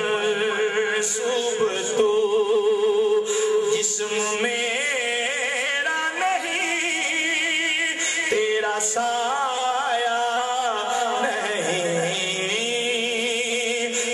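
A man singing a naat into a microphone, drawing out long held notes with a wavering vibrato. He sings melismatic phrases rather than clear words.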